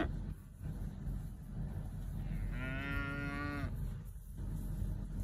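A Brangus baldy heifer moos once, a single call of about a second starting about two and a half seconds in, over a steady low rumble.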